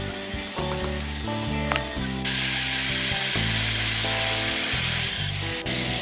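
Background music throughout; about two seconds in, a band saw starts cutting through a thick wooden block, a steady high hiss that runs on under the music and is louder than it.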